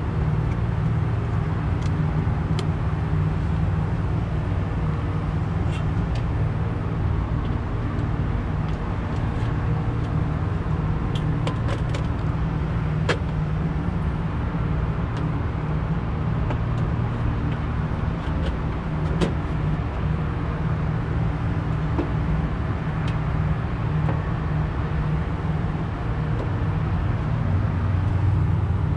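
Steady low drone of running rooftop HVAC machinery, with a few sharp clicks and taps scattered through it as a circuit-board module, its plug-in terminal connectors and a sheet-metal panel are handled.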